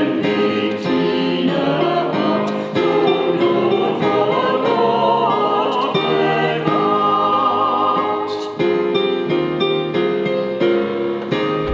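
Small church choir singing a German hymn to St. Wendelin, held notes stepping in pitch, with piano accompaniment.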